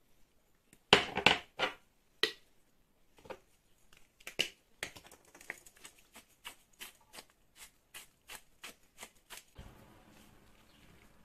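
Spice shakers shaken over a bowl: a few loud clattering shakes about a second in, then a long run of short sharp ticks, about three a second, as seasoning is sprinkled out.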